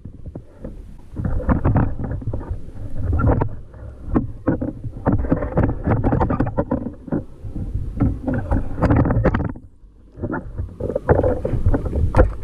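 Water sloshing and slapping around a sit-on-top fishing kayak at sea, with irregular knocks from handling on board and wind on the microphone. It drops away briefly about ten seconds in, then picks up again.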